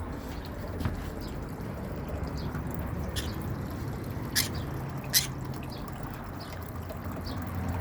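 Water trickling and dripping in a pet bird's bath, with a few sharp clicks, the loudest two about halfway through, over a steady low hum.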